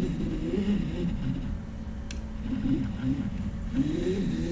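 3D printer's print head pushed back and forth by hand along the X axis with the power off. The tightened belt turns the X-axis stepper motor, which gives a whirring hum that rises and falls in pitch with each stroke. This louder motor noise is the sign of a properly tensioned belt.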